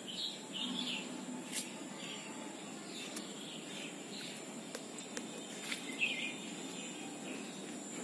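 Birds chirping on and off, short scattered calls over a steady outdoor hiss, with a few small sharp clicks.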